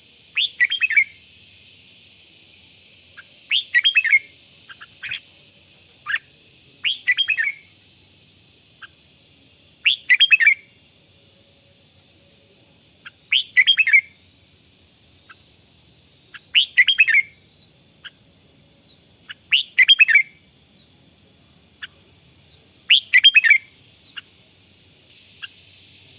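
Red-whiskered bulbul singing short, loud whistled phrases, one every three seconds or so, eight in all, over a steady faint high whine.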